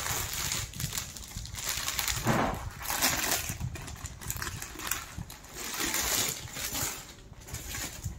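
Clear plastic packaging crinkling and rustling, with cloth being handled, as a folded suit is unwrapped from its bag; an uneven run of rustles with no steady rhythm.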